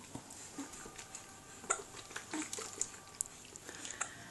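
Soft, scattered splashing and dripping of bathwater as hands scoop water over a baby in a plastic bucket-style baby bath, with a few sharper little clicks.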